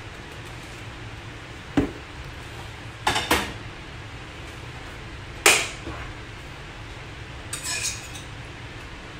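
Kitchenware clinking and knocking on the counter and stove: a sharp knock, a quick double clink, a louder clank, then a short rattle near the end.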